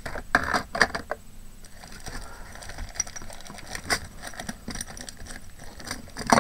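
Small hard craft embellishments ('bling') clinking and clicking as they are handled in their container: sparse, irregular light clicks, a few louder ones.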